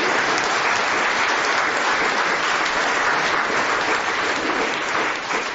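Audience applauding: dense, steady clapping from a large crowd in a hall, tapering off near the end.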